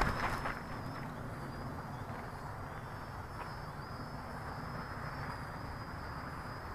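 Small quadcopter's motors and propellers whining faintly at height: a thin, high, steady tone that wavers slightly, over a low outdoor rumble.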